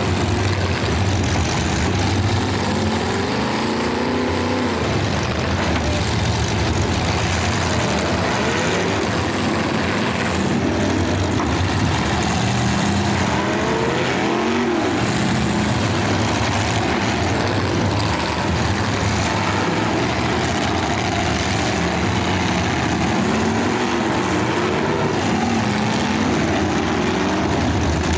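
Engines of full-size demolition derby cars running loud and steady, revving up and down repeatedly.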